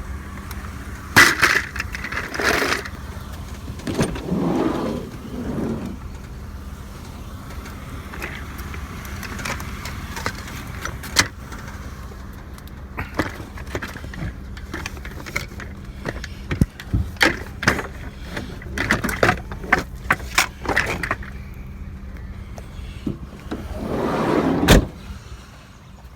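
A minivan's engine running with a steady low rumble, under scattered rattles and knocks, with a loud bang near the end.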